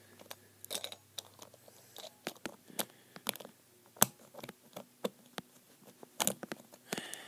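Small plastic clicks and taps as the parts of a Drain Fafnir Beyblade Burst top are pressed and twisted together by hand, with one sharper click about four seconds in.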